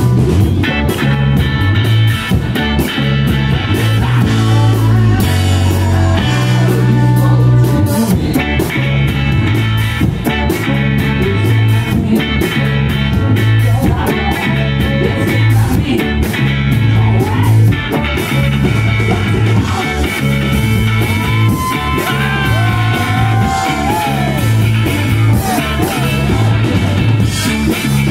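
Live rock band playing: electric guitar, bass, drums and saxophone, loud and steady, with some singing.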